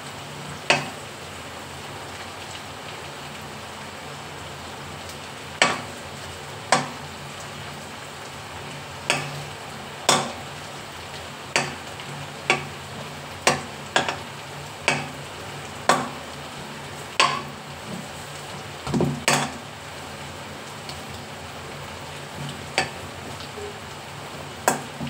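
Food frying in a pan with a steady sizzle, while a metal utensil clinks against the pan about seventeen times at irregular intervals, each strike ringing briefly.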